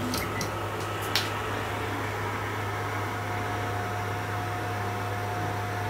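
Small cooling fan on a delta 3D printer's hot end running with a steady whir over a low hum. A few light clicks come in the first second or so, and a faint steady tone joins about three seconds in.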